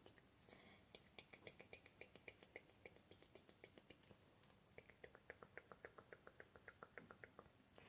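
ASMR mouth sounds: a long, faint run of soft, quick mouth clicks, several a second, fairly even in pace.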